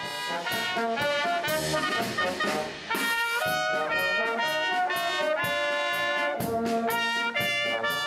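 Military brass band with trumpets and tuba playing a Second World War-era song, with a short break between phrases about three seconds in.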